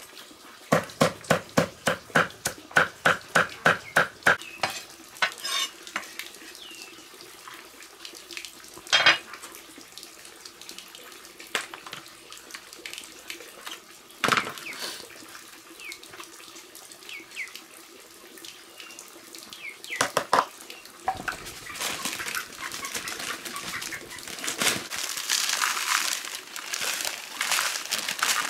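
Cleaver chopping on a round wooden chopping block in a quick, even run of about three or four chops a second, followed by scattered single knocks of the blade. Near the end comes a steady hissing patter of salt being shaken from a plastic bag onto meat.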